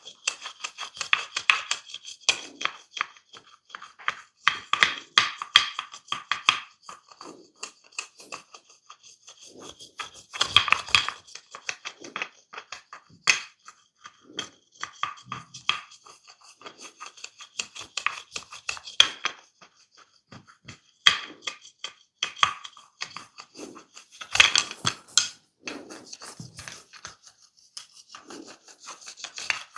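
Hands-on head and upper-body massage: quick irregular taps, pats and scratchy rubs on the scalp and skin, coming in busier, louder flurries about ten seconds in and again near the end.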